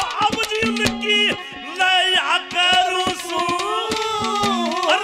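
Haryanvi ragni folk song performed live: a male voice sings gliding, held melodic lines over quick drum strokes and instrumental accompaniment.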